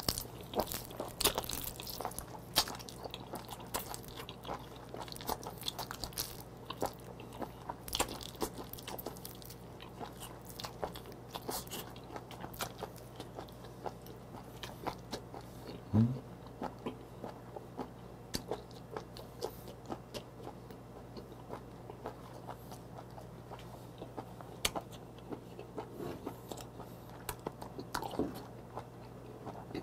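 Close-up wet chewing of raw live small octopus, with many small sticky clicks and crackles from the mouth. About halfway through there is a brief rising hum.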